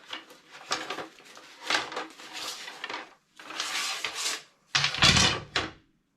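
Cardboard packaging being pulled out of a postal tube and handled: a series of scraping, rustling bursts about a second apart, the last one heavier.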